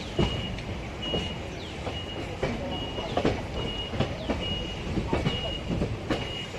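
A high electronic beeper sounds about once a second, with a short falling chirp between beeps, like a warning alarm. Under it are a low train rumble and scattered sharp knocks.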